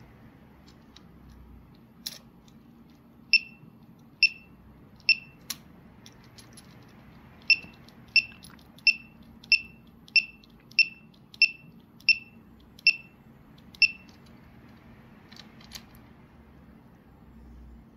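Short electronic beeps from the lapidary controller board's small speaker, all at the same high pitch: three spaced beeps, a pause, then a run of ten beeps about two-thirds of a second apart. A few faint clicks fall between them over a low hum.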